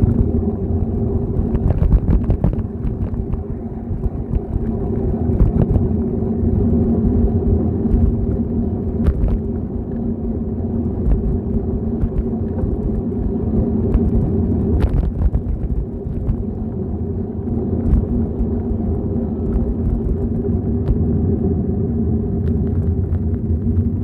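Steady rumble of a bicycle rolling along an asphalt street, heard from a camera mounted on the moving bike, with scattered small knocks and rattles from bumps in the road.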